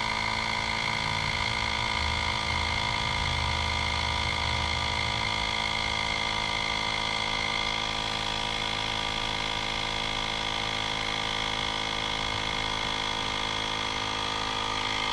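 Small electric tire inflator running with a steady, even hum as it pumps up a new bicycle tire, the pressure climbing toward 85 PSI.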